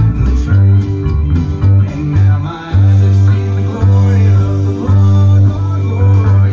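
Upright bass plucked in a line of low notes, each held about half a second to a second, over guitar-led music.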